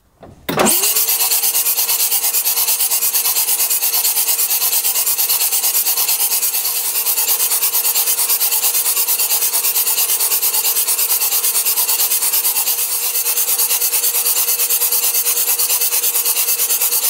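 Starter motor cranking a freshly rebuilt AEC six-cylinder diesel with its injectors and fuel pump not yet fitted, so it spins without firing while oil is pumped round the engine. It winds up quickly about half a second in, then holds a steady whine with a fast, even chatter.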